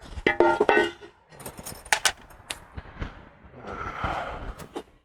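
Metal tools and engine parts clinking and knocking as they are handled during the teardown, with a brief ringing clatter near the start and a scraping sound about four seconds in.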